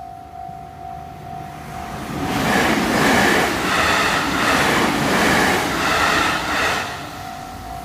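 A Japanese level crossing's electronic warning bell ringing in a steady pulsing tone while an electric train passes over the crossing. The train's rushing wheel noise with a repeating clatter builds about two seconds in, drowns out the bell, and falls away near the end, leaving the bell ringing.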